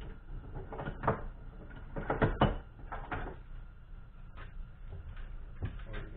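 Irregular clatter and clinks of metal hand tools being rummaged for and picked up, a gear puller among them, with the loudest knocks about a second in and around two and a half seconds in.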